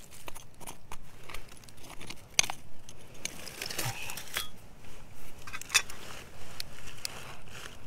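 A small pointed metal digging tool scraping and prying through gravelly soil, with many sharp clicks of small stones knocking together. About three seconds in, a hand brushes loose dirt aside with a soft rustle.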